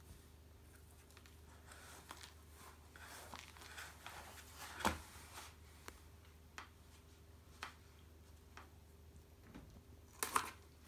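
Cat playing with a waved toy from inside a cardboard box: faint scattered rustles and light taps on the cardboard, with a sharper knock about five seconds in and a brief flurry of louder taps near the end.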